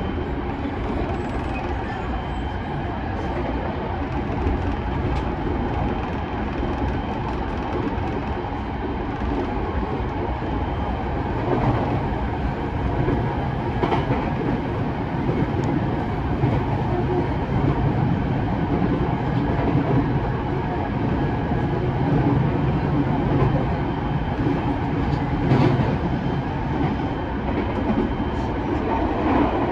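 Running noise inside a JR East E217 series electric commuter train at speed: a steady rumble of wheels on rail, with a few sharp clicks, growing slightly louder about a third of the way in.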